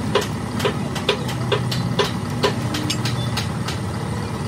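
A steady low hum from an idling engine, with a regular run of sharp metallic clicks about twice a second that turn into fainter, quicker ticks a little past halfway.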